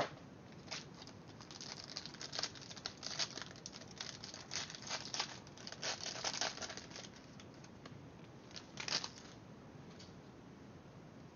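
Plastic wrapping crinkling and tearing in irregular bursts as a trading-card box is unwrapped and opened by hand, dying away about nine seconds in.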